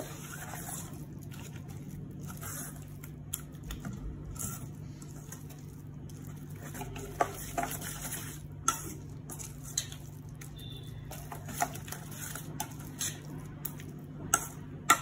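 Steel spoon stirring thick, wet corn and semolina batter in a stainless steel bowl: soft squelching, with occasional sharp clicks of the spoon against the bowl.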